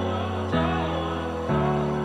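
Background music: held chords that change twice, with a wavering melody over them.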